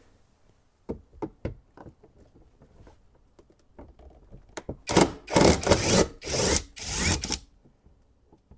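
Ratchet with a T30 Torx bit backing out a door-panel screw: a few separate clicks about a second in, then from about five seconds four loud bursts of rapid ratchet clicking, each about half a second long.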